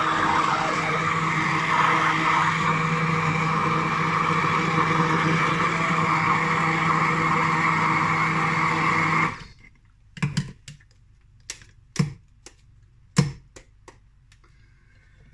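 Bamix stick blender running steadily in a glass jug of smoothie, its motor cutting off about nine seconds in. Several sharp taps follow.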